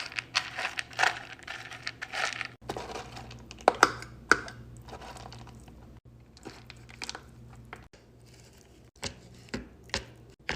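Handling noises of raw dog food being mashed down in dog bowls: a couple of seconds of crinkly rustling, then scattered sharp clicks and taps of a utensil against the bowls.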